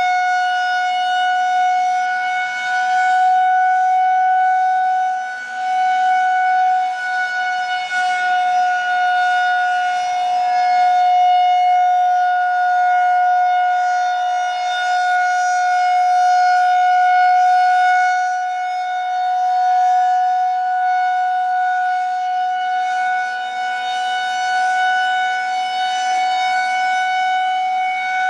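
Federal Signal 2001-130 electromechanical rotating warning siren sounding one long steady tone at a constant pitch. Its loudness swells and fades slightly as the rotating horn sweeps past.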